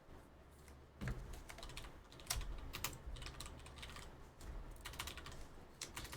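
Typing on a computer keyboard: an irregular run of keystroke clicks starting about a second in.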